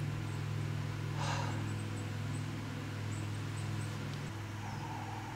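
A steady low hum of several held pitches, which shifts about four seconds in, with a few faint high chirps over it.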